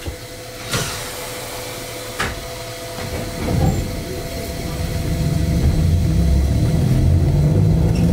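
Yokkaichi Asunarou Railway 260 series narrow-gauge train starting off from a stop, heard from the driver's cab. Two sharp clicks over a steady hum come first, then a low rumble of motors and wheels grows louder from about five seconds in as the train pulls away.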